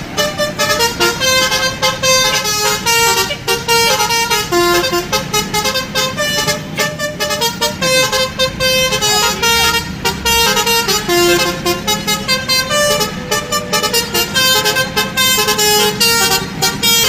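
Basuri musical horn on a bus playing a quick melody of short notes, with a steady low hum underneath.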